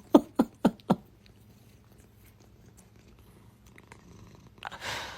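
A cat making a quick run of five short calls, about four a second, in the first second, then going quiet; a short rush of noise comes near the end.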